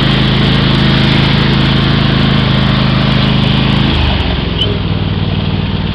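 Riding lawn mower engine running steadily close by, its speed dropping about four seconds in.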